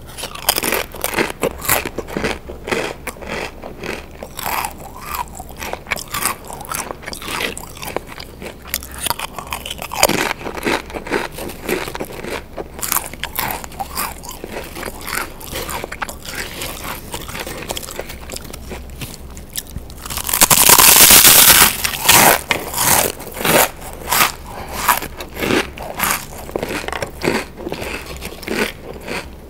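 Pringles potato crisps bitten and chewed close to the microphone: repeated sharp crunches, one after another. A much louder stretch of crackling lasting about two seconds comes a little after twenty seconds in.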